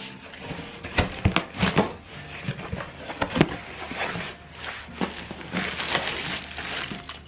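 A backpack being unboxed by hand: rustling and crinkling of its packaging, with a run of sharp clicks and taps about a second in and another near the middle, and denser rustling near the end.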